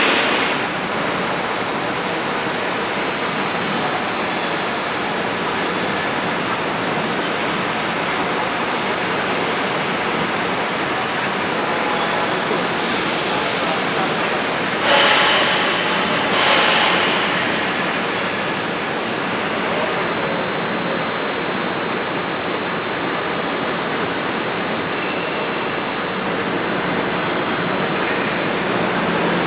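Steel coil slitting line running: a dense, steady mechanical noise with a thin high whine. A few short, louder hissing surges come near the middle.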